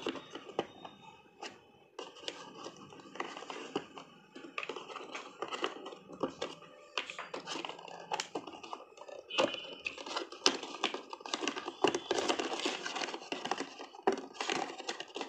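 Hand-handling of a boAt Rockerz 330 neckband being lifted out of its moulded plastic packaging tray: plastic rustling with many small clicks and taps as the earbuds and cable are pulled free.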